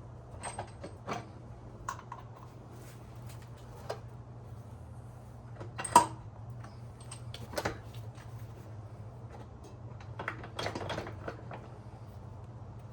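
Scattered light clicks and knocks of small metal motorcycle wheel parts being handled and fitted, with one sharper knock about six seconds in and a short cluster of clicks near the end, over a steady low hum.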